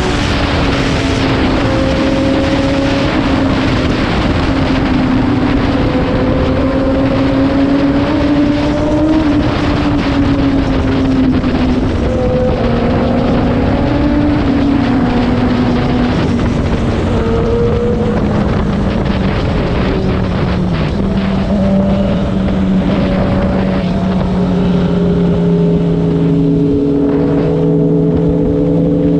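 Sport bike engine at a steady cruise, heard from the rider's seat under heavy wind rush; its note slowly falls in the second half and lifts a little near the end.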